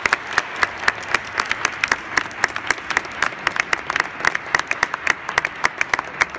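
Audience applauding in a large church, with sharp, close hand claps standing out from the wider clapping.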